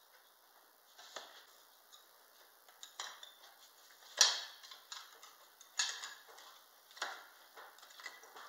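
Pieces of cut stained glass clinking and tapping against each other as they are lifted out of and set back into the panel: a scattering of sharp clicks, the loudest about four seconds in.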